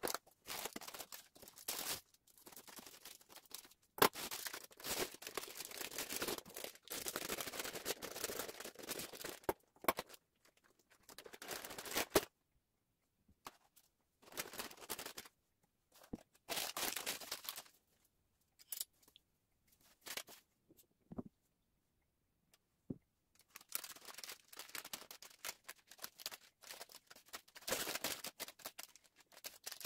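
Parchment paper and food packaging rustling and crinkling as they are handled, in irregular bursts with short silent gaps between them.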